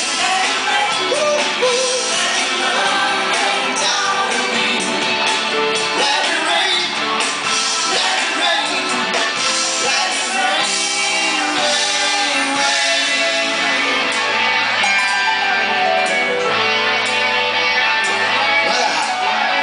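Live rock band playing: electric guitars, bass and drums, with a lead singer and backing vocalists singing over them.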